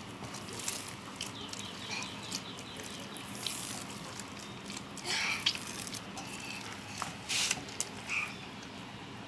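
Hands peeling and tearing the fibrous skin off a ripe palmyra palm fruit: soft scraping, crackling and rustling of the fibres, with louder short rustles about five and seven seconds in.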